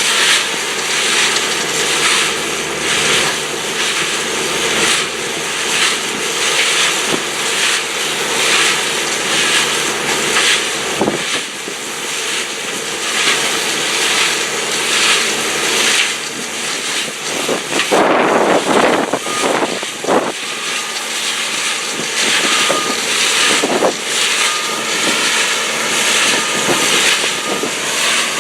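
A portable trommel screening plant running: a loud, steady mechanical din from its engine, rotating drum and conveyors, with an uneven pulsing and a rougher surge about two-thirds of the way in. Short high beeps repeat in the second half.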